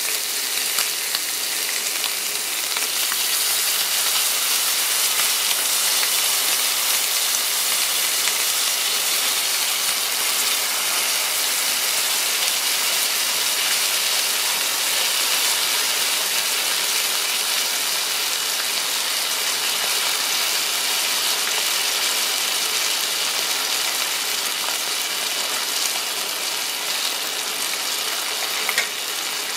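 T-bone steak and gravy sizzling in a hot cast-iron sizzle plate: a steady crackling hiss. A short knock sounds near the end.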